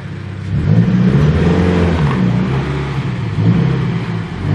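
Scion FR-S's flat-four engine running under load in reverse, revving with a pitch that rises and falls while the clutch is worked.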